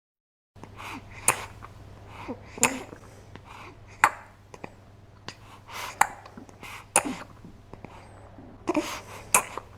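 Scattered sharp clicks and light knocks of small plastic toys being handled, spaced about a second apart, over a faint low electrical hum.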